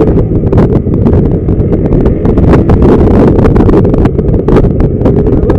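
Honda CG 125 Titan's single-cylinder four-stroke engine running with the bike under way, heard through the camera's built-in microphone with heavy wind buffeting over it.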